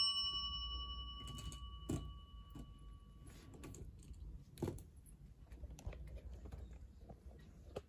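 A ringing chime note fades out over the first few seconds. Then come scattered faint clicks and taps of small plastic objects being handled, with a sharper tap about two seconds in and another near the middle.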